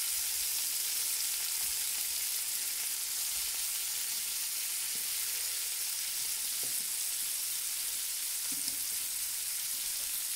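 Butter-marinated tiger prawns in their shells sizzling steadily on a hot pan, the butter melting out of the marinade and frying.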